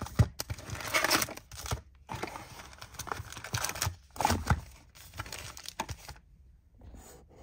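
Foil trading-card pack wrappers crinkling and rustling in irregular bursts as the packs are pulled out of the box and handled, with a sharp knock just at the start. The rustling stops about six seconds in.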